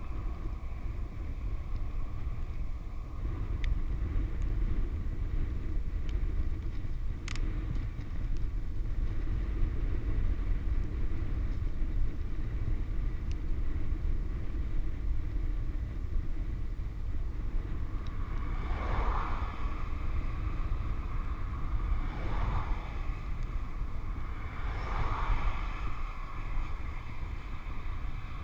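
Wind rushing over the microphone of a camera on a loaded touring bicycle coasting fast downhill, a steady low rumble mixed with tyre noise on the asphalt.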